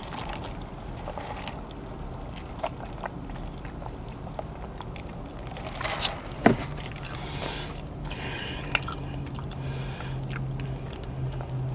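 Close-miked chewing and mouth sounds of a person eating a burger, with scattered small clicks and one sharper knock about six and a half seconds in. A low steady hum comes in just after the knock.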